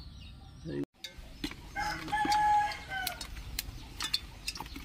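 A rooster crows once, a single held call about two seconds in that dips at its end. Light clicks and taps come from the fish being handled on a steel plate.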